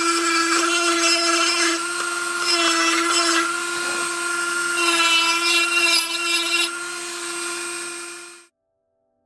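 Dremel rotary tool spinning a wood burr bit against oak: a steady high motor whine with grinding that swells and eases as the bit bites into the wood. It tails off and cuts out about eight and a half seconds in.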